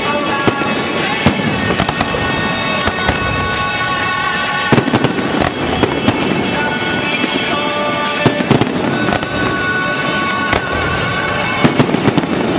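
Aerial firework shells bursting overhead in a continuous string of sharp bangs and crackles, with heavier clusters of bangs about five, eight and twelve seconds in. Pop music plays alongside the display.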